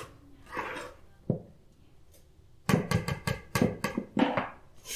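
Wire whisk beating thick carrot-cake batter in a plastic bowl. A stroke and a click come early, then a short lull, then a run of quick strokes at about five a second.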